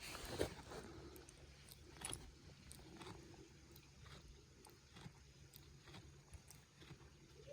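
A goat chewing close by: faint, irregular crunching clicks, a little louder about half a second in.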